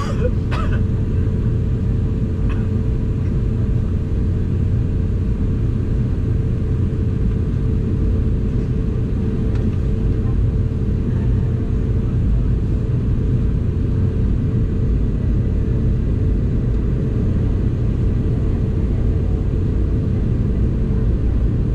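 Boeing 717-200 airliner cabin noise while climbing out after takeoff: a steady low rumble of engines and airflow with a constant hum over it. A couple of brief clicks right at the start.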